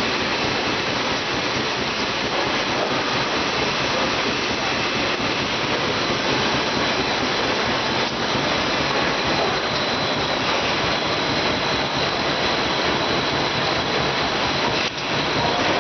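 Automatic rotary-jaw flow-wrapping machine running at speed, wrapping dishwasher tablets: a steady, dense mechanical whir with no distinct strokes, and a faint steady high whine above it.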